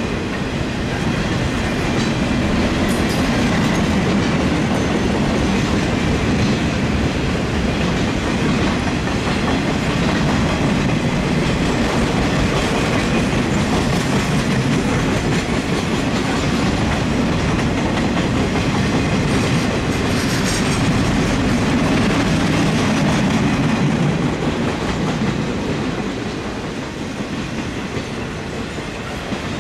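Flatcars of a passing freight train rolling by, steel wheels running steadily on the rails, a little quieter near the end.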